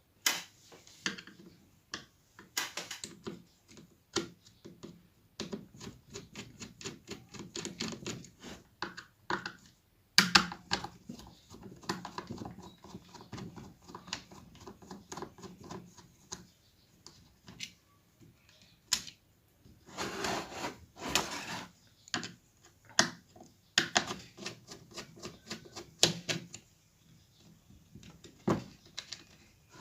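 Screws being undone from the metal housing of an LMT speaker driver unit with a screwdriver: runs of rapid clicking and scraping, broken by louder knocks as the tool and parts are handled.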